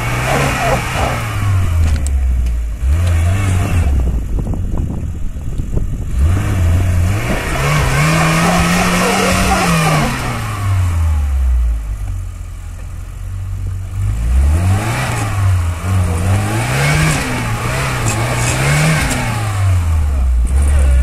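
Lada Niva's engine revving hard, its pitch climbing and dropping several times as the 4x4 claws through loose, dry dirt with its wheels spinning.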